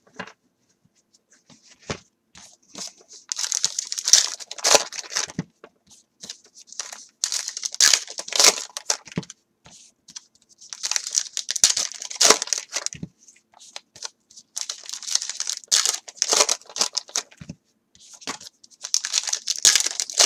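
Wrappers of 2016 Gypsy Queen baseball card packs being torn open and crinkled by hand, in about five rustling bursts of a second or two each, with short pauses between.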